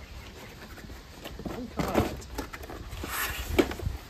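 Cardboard packaging being handled and opened: irregular knocks and clicks, with a scraping rustle of cardboard sliding about three seconds in.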